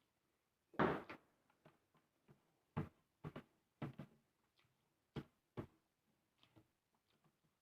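Close-up mouth sounds of eating: a string of short wet smacks and chewing clicks about every half second, with one longer, louder noise about a second in.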